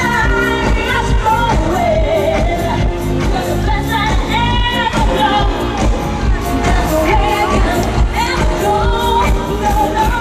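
A woman singing a pop song live into a microphone over a loud band backing with a steady beat, heard through a concert sound system.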